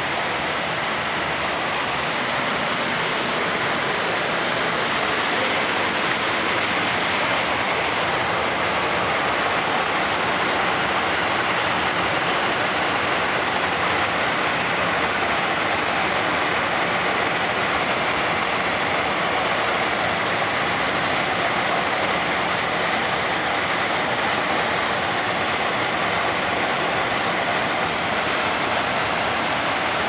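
Waterfall and rushing mountain-stream water pouring into a rocky pool: a steady, unbroken rush of water.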